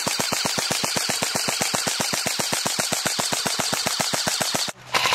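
Airsoft gun firing a long full-auto burst, roughly a dozen shots a second, in an even mechanical clatter. It stops suddenly just before the end, where a louder, steadier noise takes over.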